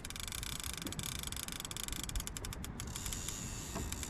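Fishing reel clicking in a fast run of ratchet-like clicks, densest in the middle, while line is worked against a hooked shark.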